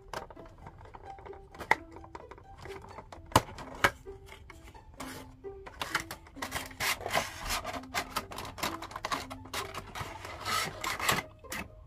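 A cardboard Funko Pop box being opened by hand: a few sharp clicks as the end flap is worked open, then, in the second half, a long rasping rub of cardboard and clear plastic as the plastic window insert is slid out of the box. Soft background music with a simple melody plays underneath.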